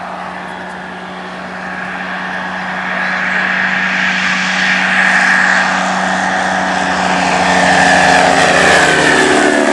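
Dornier Do 27 high-wing plane's engine and propeller at takeoff power, growing louder as it runs along the grass and lifts off toward the microphone, then falling in pitch as it passes near the end.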